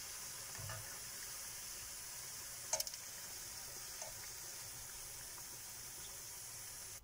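Hot oil sizzling steadily around onion bondas deep-frying in a steel pan, with a short click about three seconds in as the slotted spoon lifts the fried bondas out.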